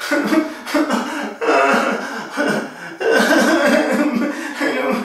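A man's voice making loud, wordless vocal noises in irregular drawn-out phrases.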